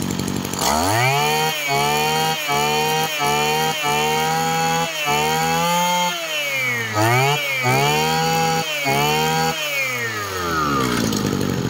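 Mitsubishi TL33 two-stroke brush cutter engine revved hard from idle on the throttle and held at high speed. Its pitch dips and climbs a few times through the middle, then falls back toward idle near the end. It runs very smoothly.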